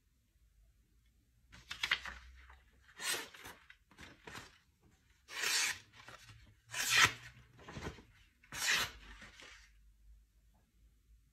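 A sharp knife blade slicing through a sheet of paper in about six short strokes, each a quick papery swish, spread over several seconds.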